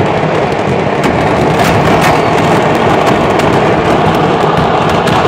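A burning stockpile of fireworks going off at once: a loud, unbroken crackle of countless small explosions, with a few sharper bangs about one and two seconds in.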